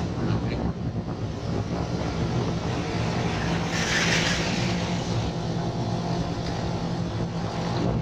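Motorcycle engine running steadily while riding, with wind and road noise on the microphone. A louder rush of hiss comes about four seconds in.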